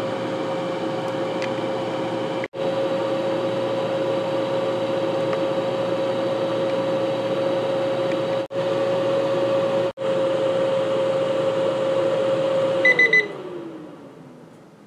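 CookJoy dome air fryer running with a steady fan hum, briefly cut off three times. About 13 s in, its timer beeps a few quick times at the end of the cooking cycle, and the fan winds down, its hum falling in pitch as it stops.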